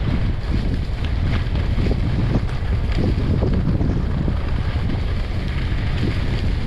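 Wind buffeting the camera microphone of a skier moving downhill, a loud, steady low rumble, with the skis hissing and scraping over groomed snow in irregular strokes.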